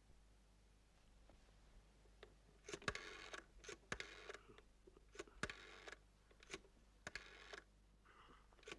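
A rotary telephone being dialled. The dial is turned and whirs back several times in a row, each return a short rattling run of clicks.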